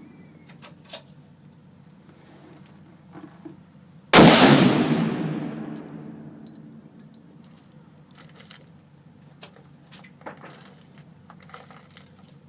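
A single high-powered rifle shot about four seconds in, its report dying away over about two seconds. Light clicks and clinks follow near the end.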